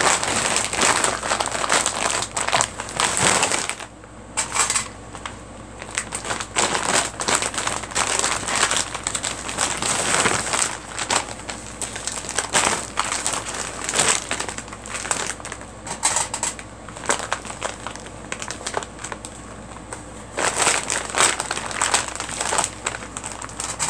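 Irregular crinkling and rustling of a quilt being folded, rolled and handled.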